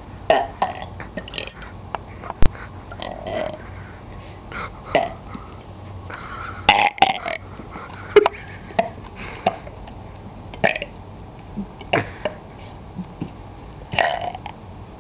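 A person burping over and over: a dozen or more short burps in quick succession, some longer and stronger than others. A sharp click comes about two and a half seconds in.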